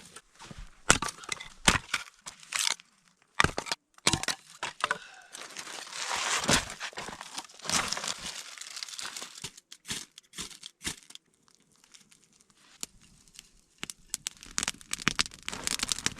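Dry twigs and small branches being snapped and broken for kindling: a string of irregular sharp cracks mixed with crunching, with a quieter gap about eleven seconds in.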